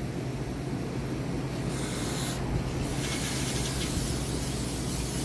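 Aerosol brake or carb cleaner spraying hard onto small-engine carburetor parts to rinse them out: a short burst about two seconds in, then a longer spray that stops near the end.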